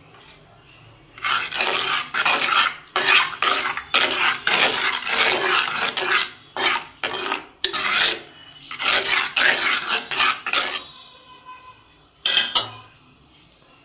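Metal spoon stirring a watery tamarind fish-curry gravy in a clay pot, scraping and clattering against the pot in quick repeated strokes, about two a second, for some ten seconds. One sharp knock of the spoon follows near the end.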